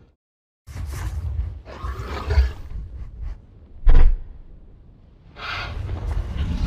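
Designed sound effects of a Rajasaurus, a meat-eating dinosaur: two deep growls, the second starting about halfway through, with a sharp heavy thump about four seconds in that is the loudest sound.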